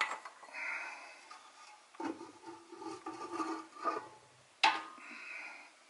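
Rattling, rubbing and a few sharp knocks as the oil rain lamp's upper assembly is worked loose from its base bowl. The loudest knock comes late on.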